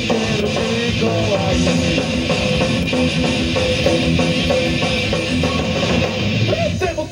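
Heavy metal band playing loud and steady: distorted electric guitar and drum kit driving under a sung vocal line.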